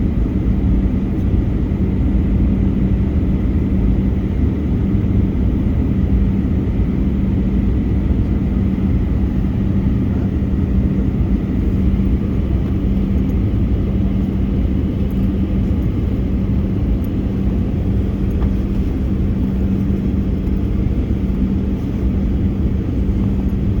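Boeing 737-800 in flight, heard from inside the cabin: a steady, unchanging drone of engines and airflow with a constant low hum and a faint high whine.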